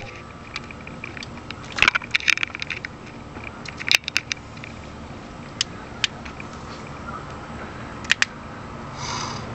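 Light clicks and knocks, a few of them in quick clusters, over a faint steady hum: handling noise from a handheld camera being moved around.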